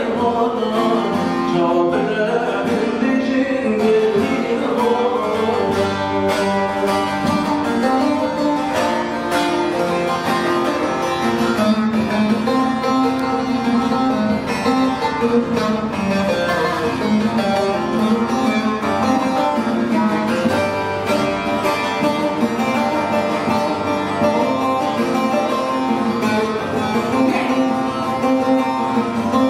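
Bağlama (long-necked Kurdish saz lute) played in an instrumental passage: a steady run of fast plucked notes.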